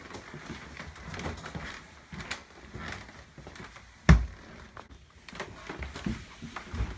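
Scuffling and rustling of people moving about on a wooden floor, with one sharp, loud thump about four seconds in and a few softer knocks near the end.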